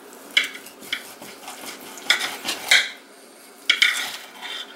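A steel knife and fork clinking and scraping against a china plate while slicing through a cooked steak: about half a dozen short, sharp clicks and scrapes.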